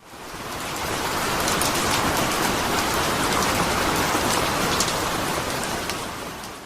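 Steady rain falling, a dense hiss with fine patter of drops, fading in at the start and fading out near the end.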